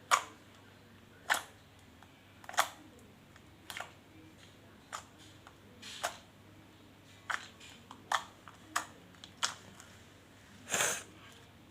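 Homemade slime being kneaded and stretched by hand, its trapped air bubbles popping in a dozen or so irregular sharp clicks, with a longer crackle near the end.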